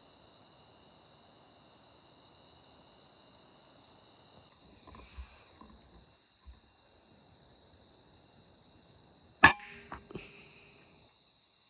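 A single sharp rifle shot about nine and a half seconds in, fired at a bird through a scope, followed by a couple of faint small clicks. Behind it, a steady high drone of insects.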